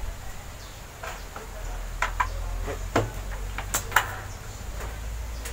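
Power button on a Sharp CRT television's front panel clicked several times in a row. The set does not respond because its extension cord is not plugged in.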